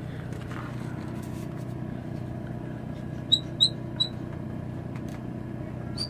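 A steady low machine hum, with three short high-pitched squeaks about three to four seconds in.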